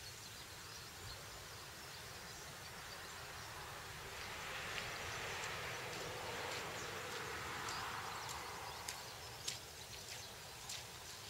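A car driving past: a faint rush of tyre and engine noise that swells about four seconds in, peaks, and fades away over several seconds. A few faint ticks sound over an otherwise quiet background.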